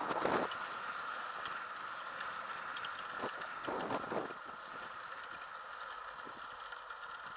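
Trikke three-wheeled carving scooter rolling over asphalt, picked up by the rider's helmet camera: steady tyre noise with light rattling clicks, and wind buffeting the microphone at the start and again about four seconds in.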